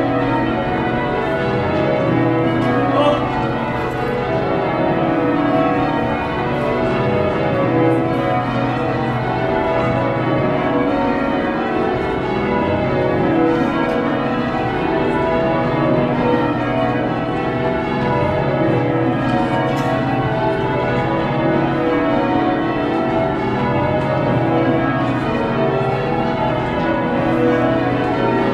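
Worcester Cathedral's bells being rung in changes, heard from the ringing chamber beneath them: a steady, unbroken run of bell strikes following one another in quick succession, with the ringing tones overlapping.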